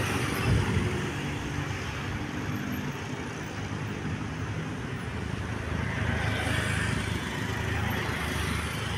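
Large bus engine running at low revs with tyre and traffic noise, a steady rumble with no horn sounding.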